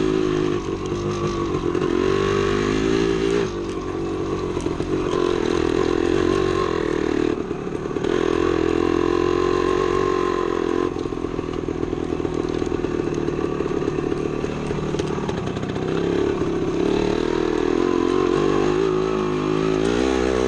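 1975 Yamaha DT250's single-cylinder two-stroke engine running at steady cruising revs under load on a dirt trail. The revs ease off briefly and pick up again a few times.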